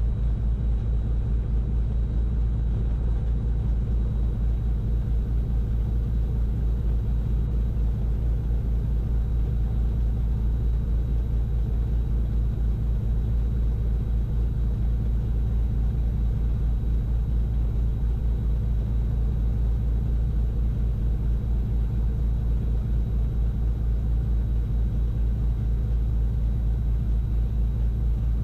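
The Cessna 310Q's twin six-cylinder piston engines idling, a steady low drone heard inside the cockpit.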